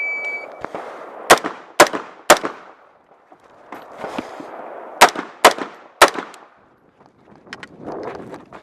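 Shot timer's start beep, then an RPK-pattern rifle fired in two quick strings of three shots, each about half a second apart and a few seconds between strings, with fainter cracks near the end.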